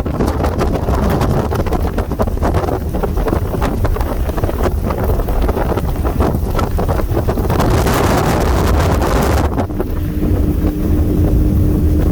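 Twin Yamaha F300 V6 outboard motors running with the tritoon under way, heavily buffeted by wind on the microphone. About nine and a half seconds in, a steady hum comes in and holds.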